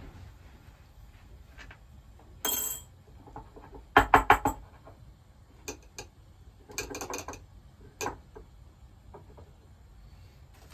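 Small glasses and dishes being handled on a low wooden table: scattered sharp clicks and knocks, the loudest a quick run of four about four seconds in, with a short rustle of cloth before it.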